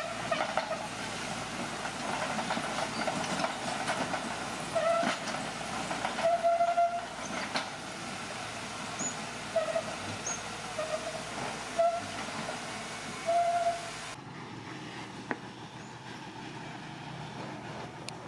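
Crawler bulldozer working, its steel tracks giving short metallic squeals, about seven of them, over the steady clatter of the machine. The sound drops to a quieter rumble after about fourteen seconds.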